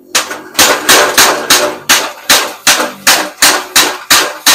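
Mechanical power hammer striking red-hot steel on its anvil in a steady run of heavy blows, about three a second, each with a short metallic ring.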